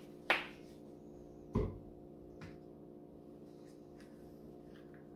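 Steady low hum with two sharp knocks about a second apart near the start, and a few faint clicks later: kitchen handling around a frying pan on the stove.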